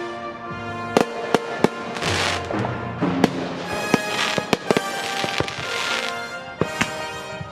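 Consumer fireworks going off: several sharp bangs and crackling, fizzing bursts, heard over background music.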